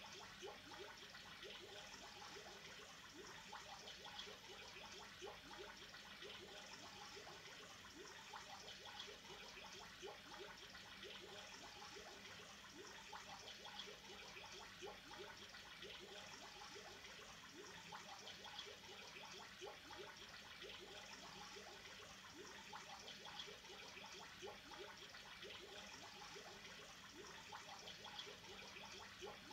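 Aquarium water trickling and bubbling faintly and steadily, a constant patter of small bubbling blips.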